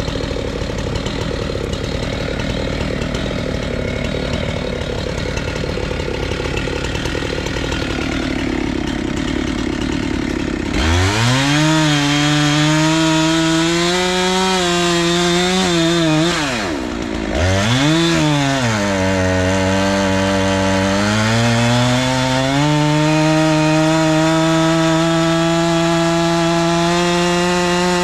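Husqvarna 390XP two-stroke chainsaw with a 3-foot bar cutting through a thick willow trunk. For the first part it is a dense, rough sawing noise. Then, about ten seconds in, the engine note comes up clearly. Its pitch sags under load and picks back up a couple of times before holding high.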